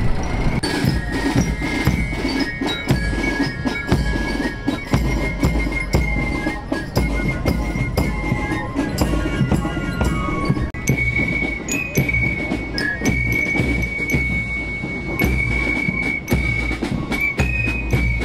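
Fife-and-drum marching band (Spielmannszug) playing a march: transverse flutes carry a high melody over steady drum strokes.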